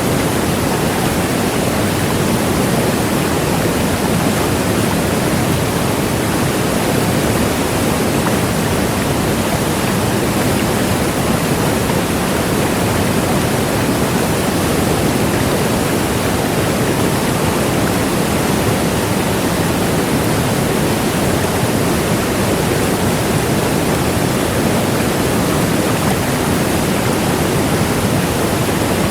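Large waterfall: water falling and crashing in a steady, loud, unbroken rush.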